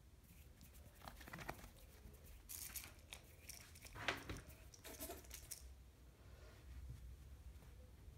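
Faint scratching and rustling of a quilted fabric blanket as a Sphynx kitten paws at it and steps about, in a few short bursts, the loudest about four seconds in.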